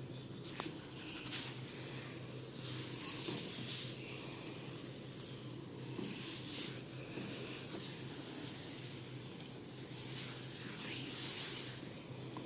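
Hands rubbing and scratching through hair and over the scalp close to the microphone, in repeated hissy strokes about a second long, with a few small clicks near the start.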